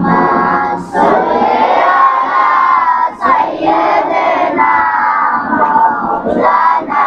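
A man singing a Bengali Islamic devotional song unaccompanied, in long, wavering held notes, with short breaks for breath about a second in and about three seconds in.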